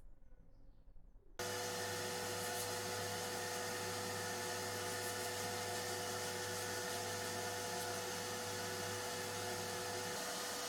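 A small electric power-tool motor cuts in abruptly about a second and a half in and runs steadily at an even pitch. A low hum under it drops away near the end.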